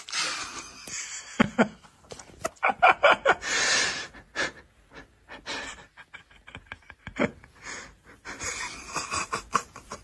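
A person laughing breathlessly: wheezy, gasping bursts of laughter that come in short irregular fits.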